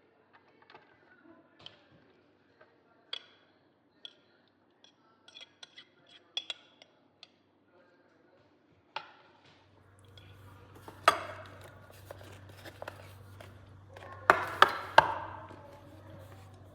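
Kitchen handling sounds: dishes, glass and utensils clinking and knocking in scattered light taps, with a few louder clatters near the end. A low steady hum comes in about ten seconds in.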